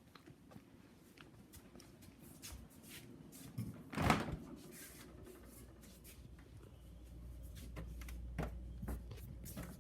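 Refrigerator door being pulled open, with a sharp click about four seconds in among small knocks and handling noises. A low steady hum sets in afterwards.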